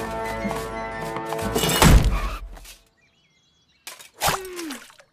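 Cartoon soundtrack music ending on a loud crash about two seconds in. After a brief silence comes a short cartoon sound effect whose pitch falls.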